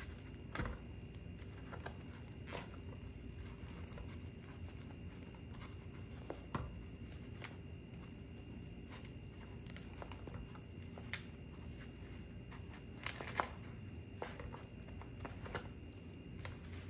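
A spoon pushes ground beef off a meat tray into a plastic mixing bowl. Soft, scattered taps and scrapes sound over a faint steady hum, with a couple of sharper knocks about thirteen seconds in.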